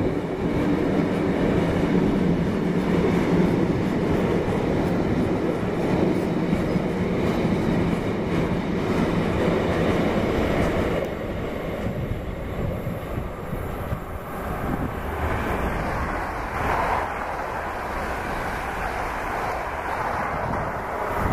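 Loaded stone train's bogie hopper wagons rolling past at speed, a dense steady rush of wheels on the rails. About halfway through it turns quieter as the tail of the train passes and draws away.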